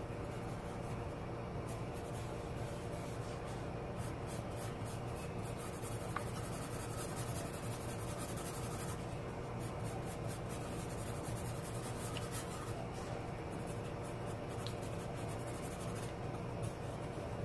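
Pencil scratching on drawing paper in quick back-and-forth shading strokes, densest from about four to nine seconds in. A steady low hum runs underneath.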